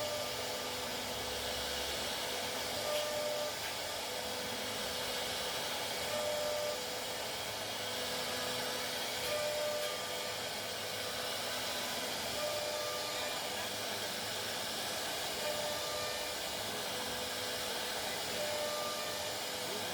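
CNC router running steadily, a continuous whirring hiss, with a faint short tone about every three seconds.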